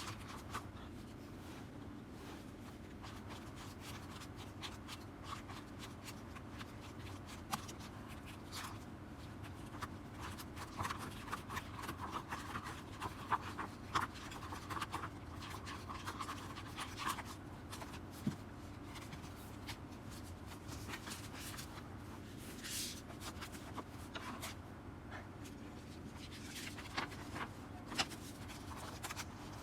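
Hands handling album packaging and its paper contents: scattered light taps, clicks and paper rustles, busiest in the middle, with a longer rustle or slide about two-thirds of the way through.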